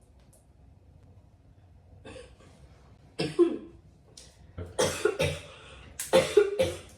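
A person coughing after a hit of smoke: a faint cough about two seconds in, then a fit of about half a dozen coughs in quick groups from about three seconds in.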